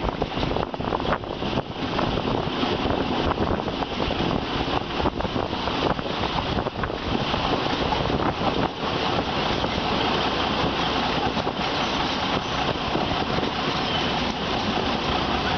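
Passenger train running on the rails, heard from an open carriage window: steady rumble and rattle of the wheels on the track with irregular clacks, and wind rushing over the microphone.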